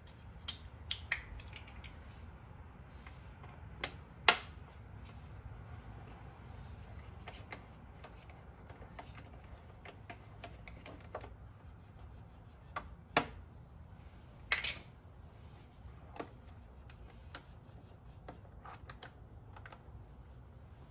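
Scattered clicks, taps and knocks of hands handling a motorcycle's plastic fairing panel and its fasteners, the sharpest knock about four seconds in and a few more near the end, over a low steady hum.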